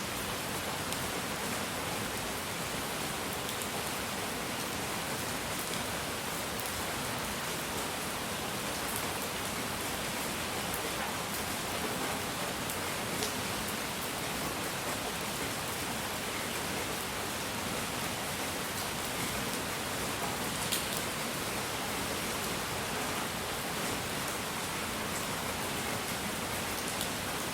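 Steady, even relaxation noise: a continuous hiss spread across all pitches, much like rain, with a few faint ticks over it.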